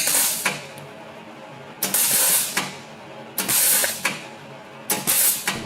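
MIG welder arc struck in four short bursts, each a crackling hiss lasting under a second, about a second and a half apart: brief flashes of the arc that set off an auto-darkening helmet's lens.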